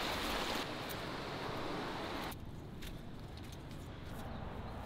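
Small waves washing up on a sandy beach, a steady rushing surf; after about two seconds it cuts off abruptly, leaving a quieter background with a few faint taps.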